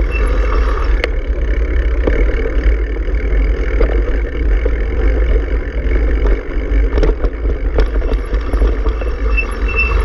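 Bicycle riding over a rough dirt road, heard through an action camera on the bike: a steady rumble of wind buffeting the microphone and tyres rolling over the ruts, with a few sharp clicks and rattles.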